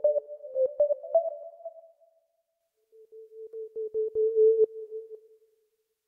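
ReFX Nexus 4 software synthesizer's 'Whistlelead' preset, a synthetic whistle lead. It plays a quick run of notes that dies away about two seconds in. After a short pause it plays one long held note that fades out near the end.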